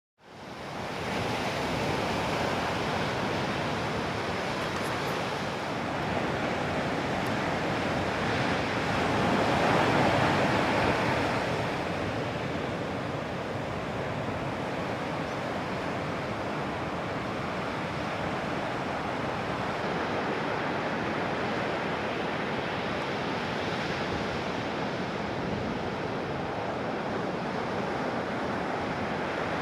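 Ocean surf from a typhoon swell: a steady rush of breaking waves, swelling louder for a few seconds about nine to eleven seconds in.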